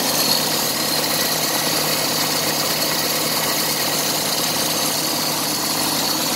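Toyota 22RE four-cylinder fuel-injected engine idling steadily, heard from the open engine bay. It is running smoothly on its first start after sitting unused all winter.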